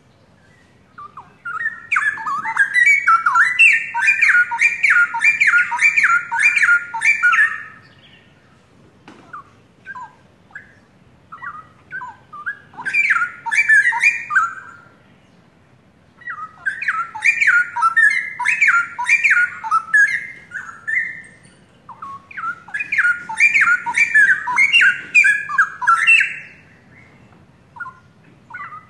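Straw-headed bulbul (cucak rowo) singing loudly, in four bursts of rapid warbling song a few seconds long, with scattered single notes between the bursts.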